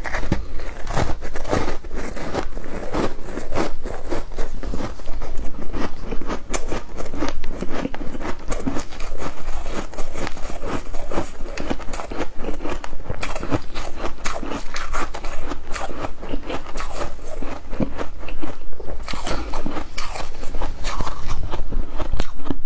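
Foam ice topped with flaked humidifier ice being bitten and chewed, a dense run of crunches with hardly a pause.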